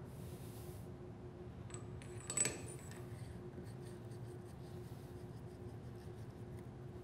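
Small metal parts handled at a workbench: the AR-15 barrel nut and its thin shims clicking together, with a light metallic clink and brief ring about two and a half seconds in, then faint ticks and rubbing. A steady low hum runs underneath.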